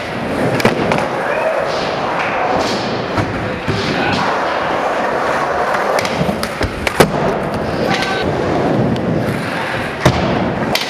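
Skateboard wheels rolling on a concrete floor in a steady rumble, broken by several sharp clacks of the board hitting the ground, the loudest about seven seconds in.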